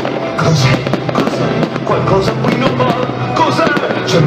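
Fireworks going off in quick succession, many sharp pops and bangs, with music playing along.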